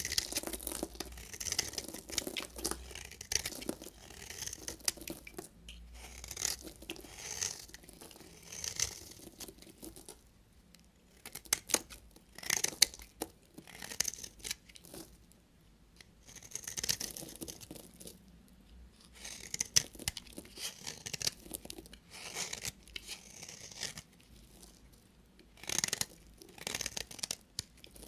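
A knife cutting through bars of soap: a series of short, dry scraping strokes with sharp clicks among them, and a brief lull about ten seconds in.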